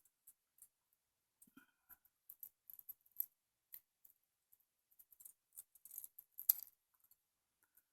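Faint, scattered small metallic clicks and ticks as a tiny tapered roll pin and the charging handle latch parts are handled and pressed into place by hand. The loudest click comes about six and a half seconds in.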